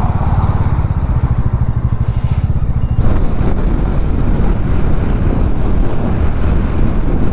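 Bajaj Dominar 400's single-cylinder engine running steadily under way, heard from the rider's seat. The engine note changes about three seconds in.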